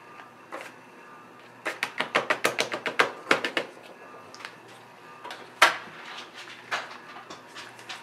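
A quick run of small plastic clicks and taps, then a single sharp click about halfway through, from a tube of acrylic paint and its cap being handled and opened.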